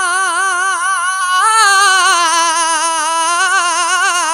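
A male kavishri singer's voice holding one long high note with a steady wavering vibrato, which lifts slightly about a second and a half in and then slides gradually lower.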